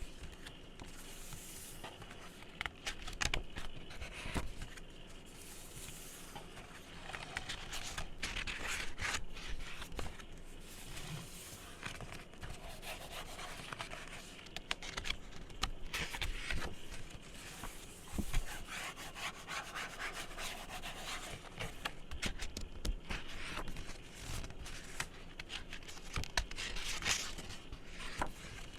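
Close-miked hands rubbing and scratching across an object's surface, with many light taps and clicks mixed in.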